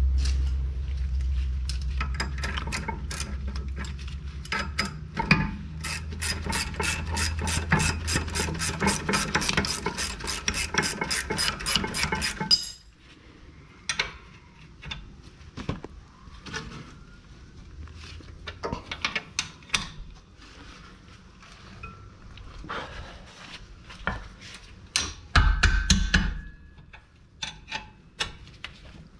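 Hand-tool work on a brake assembly: an even run of sharp clicks, about four or five a second, over a low rumble that cuts off suddenly about halfway through. Then scattered metallic clicks and knocks follow.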